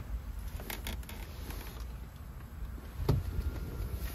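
Light clicks and one louder knock about three seconds in, from work under a vehicle's dashboard during a blower motor replacement, over a low steady rumble.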